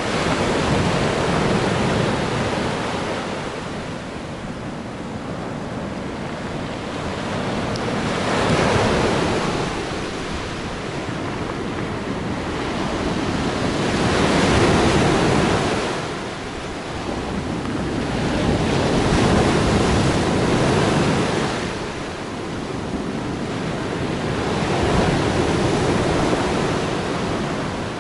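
Black Sea waves breaking and washing on the shore, the surf swelling and falling back about every five to six seconds, five times.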